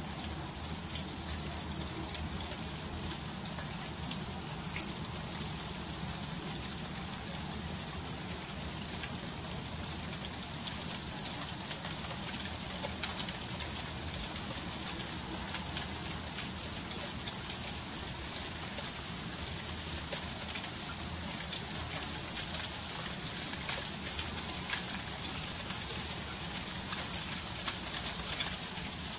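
Freezing rain falling steadily: a dense patter of tiny ticks over an even hiss, with now and then a slightly louder click.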